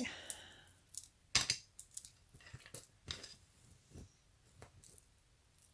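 Jewelry being handled: scattered light clicks and clinks of beads and metal pieces knocking together, the loudest about a second and a half in.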